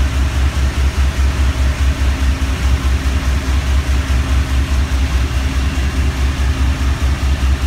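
Vehicle engine idling, a loud, steady low throb pulsing at an even rate of several beats a second.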